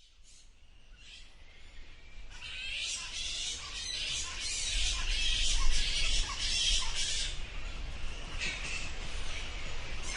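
Many bats squeaking and chittering, a dense mass of high overlapping calls that fades in over the first couple of seconds and grows louder.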